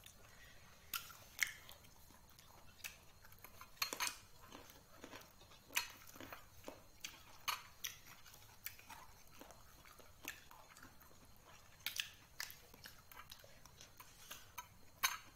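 A person chewing and eating with their fingers. Irregular, fairly faint mouth clicks and smacks come about once a second, with a few sharper clicks among them.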